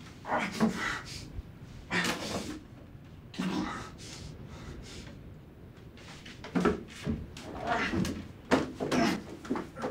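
A man's gasping breaths and groans in separate bursts, coming closer together in the last few seconds.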